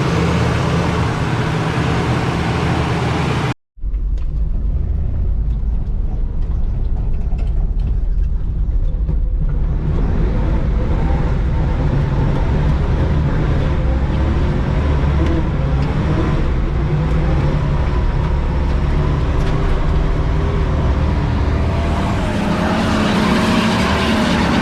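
Car engine running with a steady low rumble. The sound cuts out abruptly for a moment just over three seconds in, then an engine runs on, its pitch rising near the end.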